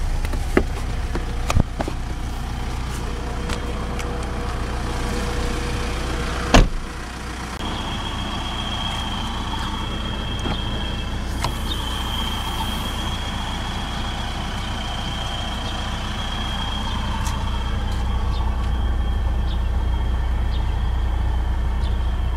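A single loud clunk from a door latch on a 2012 Mitsubishi Montero Sport about six and a half seconds in, over a steady low rumble. A thin high whine holds for several seconds after it.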